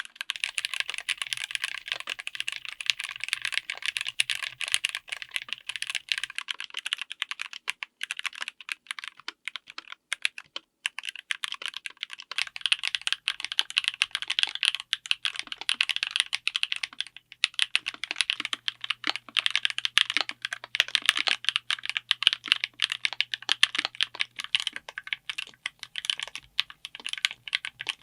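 Steady, fast typing on a full mechanical keyboard with linear switches and Cherry-profile keycaps: a dense stream of keystroke clacks. There are brief pauses about ten and seventeen seconds in, where the sound changes as one switch type gives way to the next.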